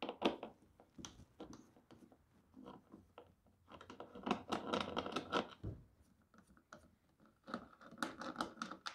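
Hand screwdriver backing screws out of the plastic top cover of a DeWalt DW735 thickness planer: faint clicking and scraping in short runs, densest around the middle and near the end.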